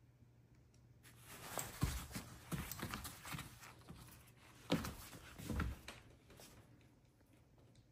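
A puppy scrambling on a padded fabric mat while playing with a plush toy: a run of thumps and rustling, loudest about two seconds in and again near five seconds.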